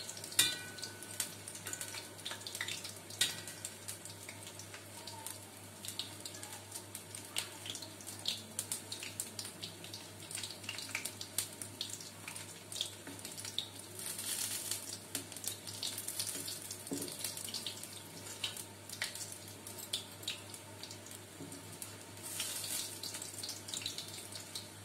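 Gram-flour dumplings for kadhi frying in hot oil in an iron kadai, a steady sizzle with frequent small clinks of a slotted spoon against the pan. The sizzling swells twice, about halfway and again near the end, over a low steady hum.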